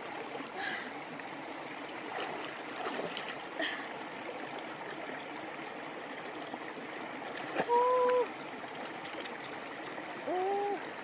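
Shallow rocky stream flowing, with light splashing and clicking as hands search the streambed. About two-thirds of the way through and again near the end, two short steady-pitched calls of about half a second each stand out as the loudest sounds, the second sliding up before it holds.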